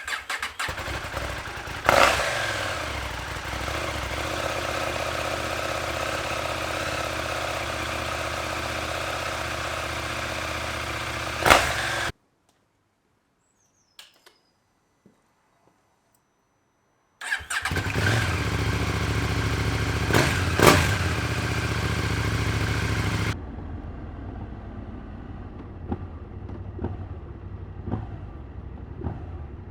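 KTM 790 Adventure's parallel-twin engine running at idle, with a few short loud bursts. The sound cuts off abruptly for about five seconds in the middle, then the engine returns. It is noticeably quieter for the last several seconds.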